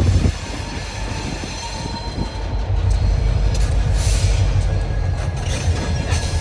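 Youngstown & Southeastern Railroad freight train running, a loud steady low rumble.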